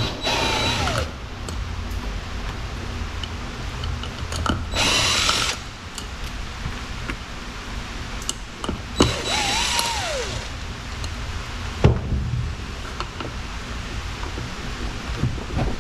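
Cordless power driver running in three short bursts of about a second each, its whine rising and falling with each trigger pull, as it backs out the screws holding a robot mower's cutting heads. A single sharp knock comes later.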